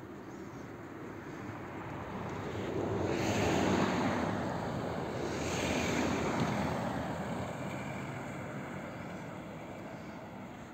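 Cars passing on a snow-covered road: tyre and engine noise swells twice, about four and six seconds in, then fades away.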